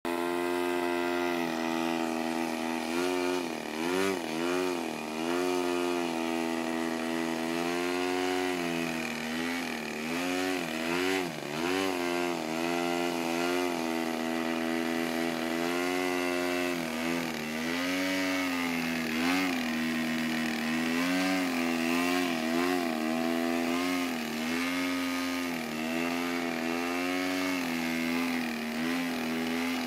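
Gas two-stroke engine of a radio-controlled aerobatic plane running steadily in a prop-hang hover. Its pitch wavers up and down in short runs, around 3 to 5 seconds in, around 10 to 12 seconds in, and from about 17 to 23 seconds in, as the throttle is worked to hold the plane nose-up.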